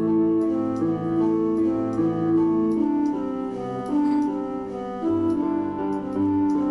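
Instrumental music: a slow melody of held notes over sustained chords, the notes changing about every half second.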